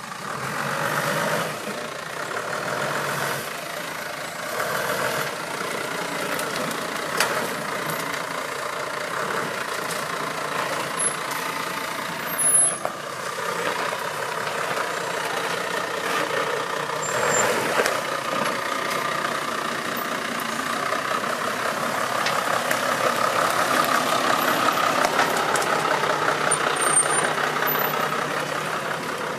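Off-road 4x4 vehicle's engine running under load, rising and falling, louder in the second half. A sharp knock is heard about twelve seconds in.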